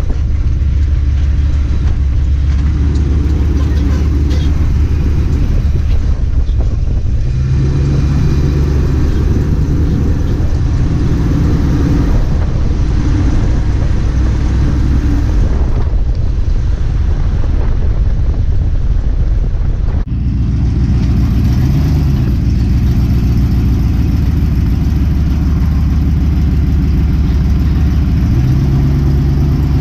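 Motor vehicle driving: steady engine and road rumble, with the engine pitch rising and falling a few times, and an abrupt break about twenty seconds in.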